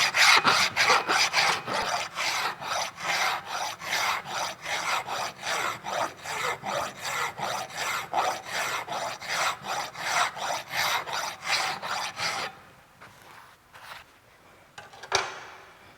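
Hand file rasping back and forth across the edge of a metal workpiece clamped in a vise, bevelling it for a V-groove weld, in a steady rhythm of strokes. The filing stops about three-quarters of the way through, and a few light knocks follow.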